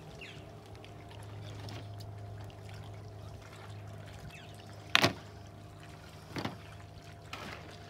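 A steady low mechanical hum, like an idling motor, with three sharp knocks: the loudest about five seconds in, then two more about a second apart near the end.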